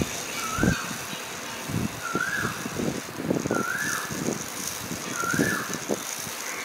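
Miniature 4-6-2 steam locomotive model rolled slowly by hand along its track: wheels and coupling rods rattle and knock, with a short rising-and-falling squeak about every second and a half, once per turn of the driving wheels.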